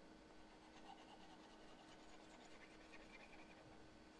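Near silence: a faint steady hum, with light scratching of a stylus rubbing on a pen tablet as handwriting is erased.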